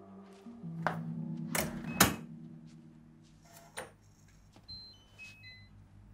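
A few sharp clicks and knocks, the loudest about two seconds in, while low held music notes fade out. After that come several short high beeps and a faint room hum.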